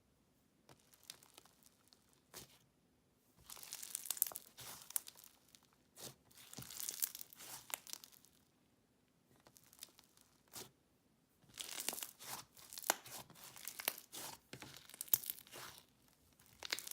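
Crunchy slime being squeezed and worked by hand, giving dense crackling and popping in three spells with quiet pauses between.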